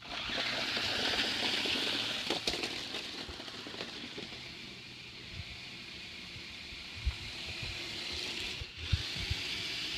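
Toy radio-controlled car running, its small electric motor and wheels making a steady hissing whir that starts suddenly and eases off a little midway.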